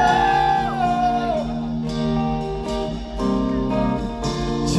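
Live pop-rock band playing an instrumental passage between vocal lines, guitar prominent over sustained chords, with a held sung note falling away in the first second and a half.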